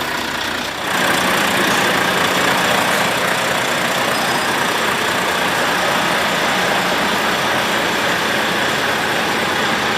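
Volvo 440 heavy truck's diesel engine running at a steady idle, getting louder about a second in. It is the test run after the steering box oil seals were replaced.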